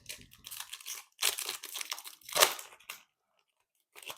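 Foil trading card pack wrapper being torn open and crinkled by hand, in a run of rustling bursts with the loudest rip about two and a half seconds in.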